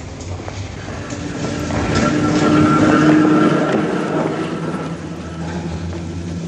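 Electric tram running along street track, a steady whine swelling to a peak about three seconds in and then fading, over a low hum.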